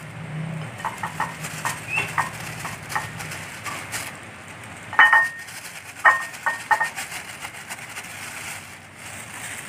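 Hands gloved in plastic bags dipping and turning a salted fish in a plate of vegetable oil: plastic crinkling, small wet oily dabs and light taps on the ceramic plate. A few short high chirps, the loudest about halfway through.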